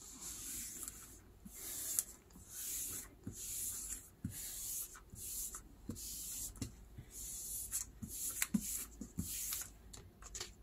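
Hands rubbing and smoothing a sheet of paper pressed onto an inked metal baking tray to lift a print: repeated soft swishing strokes of skin on paper, about one to two a second, with a few faint taps.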